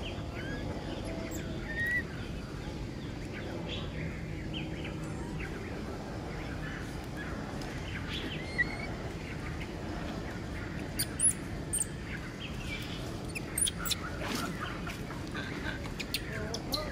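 Outdoor ambience of small birds chirping in short, scattered calls over a steady background hiss, with a few sharp clicks in the second half.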